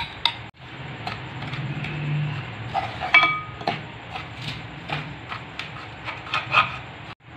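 Steel spoon scraping and tapping against a metal pan while stirring sugar into dry milk powder, with scattered sharp clinks and one clink that rings briefly about three seconds in.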